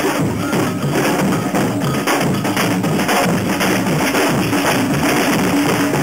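A street band of drummers playing a loud, steady rhythm on metal-shelled drums: deep bass-drum strokes under quicker, sharper strikes.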